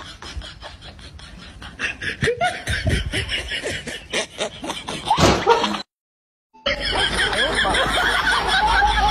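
A person snickering and laughing in short bursts, then, after a brief cut, a dog howling with a wavering pitch.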